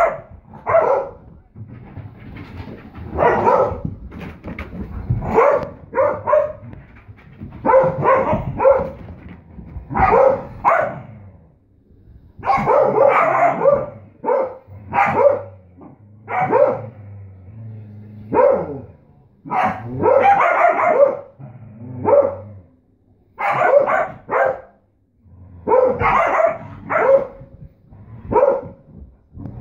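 Dogs barking in short bursts, about one every second or two, as they play-fight.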